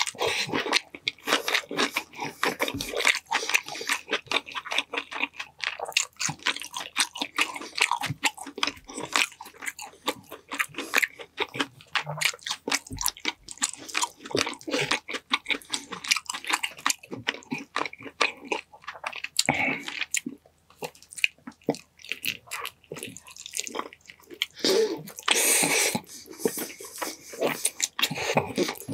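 Close-miked eating sounds: rapid, irregular wet chewing, lip smacking and biting on sticky honey-glazed chicken, with a louder, noisier stretch near the end.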